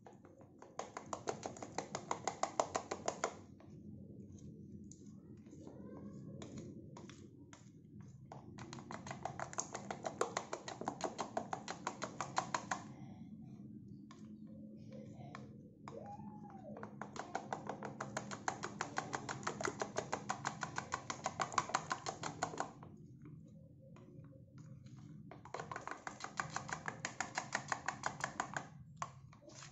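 Metal spoon whisking thin flour batter in a plastic bowl, clicking rapidly against the bowl in four spells of several seconds each, with short pauses and a few single taps between them.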